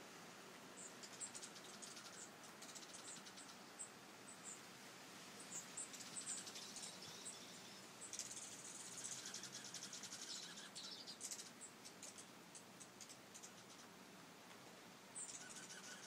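Dark-eyed juncos giving faint, high chip calls, with a run of rapid twittering about eight seconds in that lasts a few seconds.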